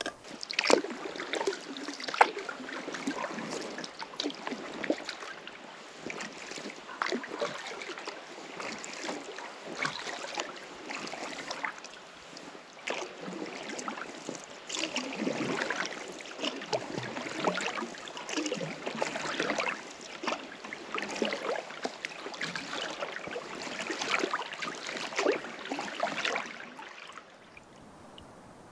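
Water splashing and dripping from stand-up paddle strokes on a river, in uneven surges with many small drips and splashes. It cuts off about a second before the end.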